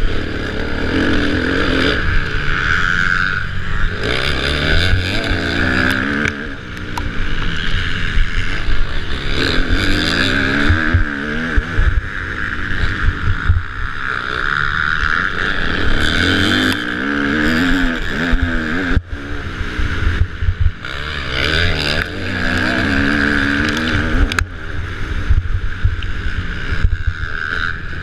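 Kawasaki motocross bike engine heard from a camera mounted on the bike, revving hard with the pitch rising and falling every few seconds as the throttle opens and shuts through the track's corners.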